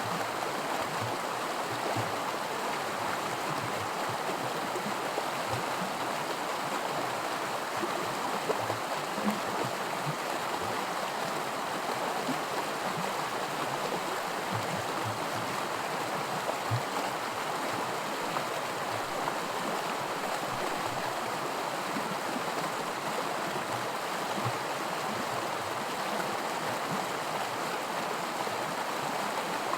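Small creek rippling and splashing over a stretch of miniature white water, a steady rush with little plops and gurgles scattered through it.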